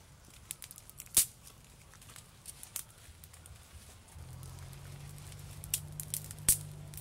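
Small twig campfire crackling, with scattered sharp pops, two of them loud (about a second in and near the end). A low steady hum comes in a little past halfway.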